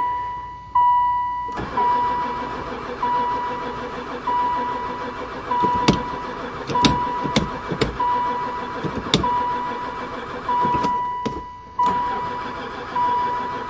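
A van's starter motor cranks the engine for about ten seconds, stops briefly, then cranks again, and the engine never fires. The man takes the no-start for a lack of spark. A steady electronic warning chime beeps about once a second throughout.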